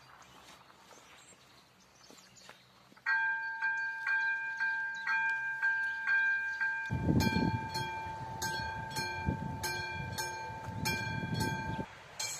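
Electronic warning bell of a Czech level crossing starting up about three seconds in, ringing with a steady rhythm of about two strikes a second as the red lights begin to flash: the crossing is activating for an approaching train. A low rumbling noise joins from about halfway, and both stop suddenly near the end.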